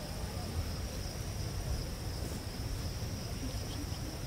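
Steady, high, even trilling of crickets and other insects, over a low fluctuating rumble of wind on the microphone.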